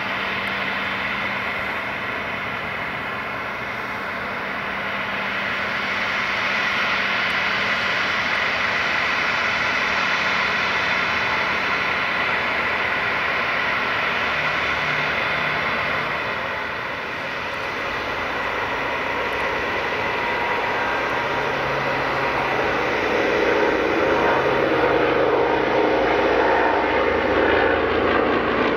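Dassault-Breguet-Dornier Alpha Jet's twin turbofans running with a steady high whine as the jet taxis. From about two thirds of the way in, the deeper engine drone of low-passing propeller warbirds, a P-38 Lightning among them, comes in and grows louder near the end.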